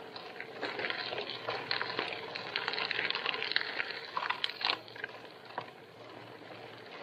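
Bicycle tyres crunching and crackling over a loose gravel road, with many small clicks of stones. A few sharper clicks come a little past halfway, and the crunching eases over the last couple of seconds.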